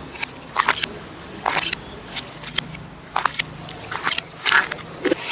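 Spoon clattering and scraping against the inside of a large clay mortar as salad is tossed, in short irregular knocks that come in little groups of two or three.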